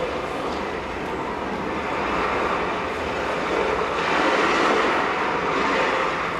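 Recorded sea sound effect played over the theatre's speakers: a steady wash of surf that swells about four seconds in.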